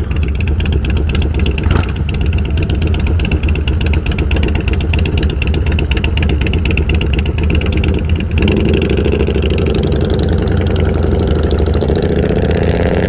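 Harley-Davidson V-twin motorcycles idling with an uneven, loping pulse, one of them with a loud exhaust. About eight seconds in they pull away, and the engine note rises as they accelerate.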